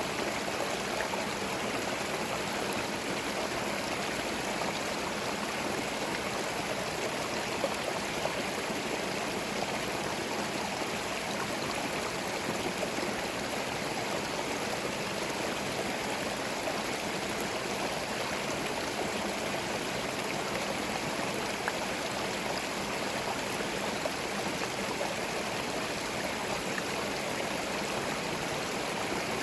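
Small forest stream flowing and gurgling over stones, a steady, even rush of water with no birds.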